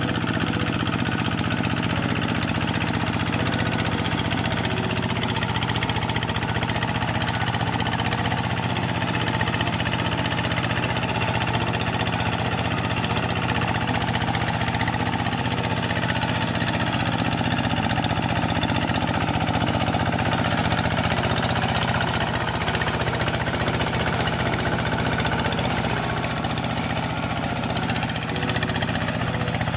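Two-wheel paddy tractor's engine running steadily under load while plowing a flooded rice field.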